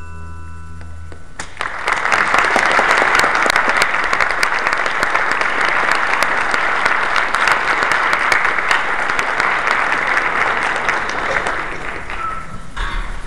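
The string orchestra's last low note dies away. About a second and a half in, an audience breaks into steady applause, which thins out near the end.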